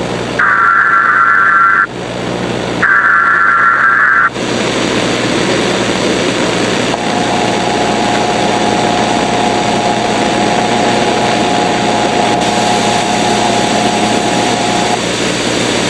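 Emergency Alert System header data bursts: two harsh, buzzy digital screeches, each about one and a half seconds, with a short gap between them. Then a steady loud static hiss, with a single steady tone sounding through it from about seven seconds in until near the end.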